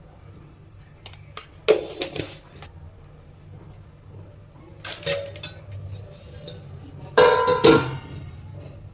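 Metal kitchen utensils and pots clinking and clanging as they are handled, in three short clatters with a ringing tone. The loudest comes near the end.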